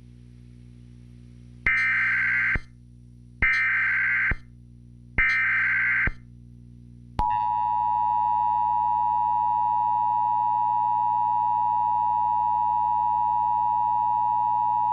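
Emergency Alert System header: three buzzing digital data bursts, each about a second long, then about 7 seconds in a single steady attention tone starts and holds, signalling a tornado warning. A faint low hum runs underneath.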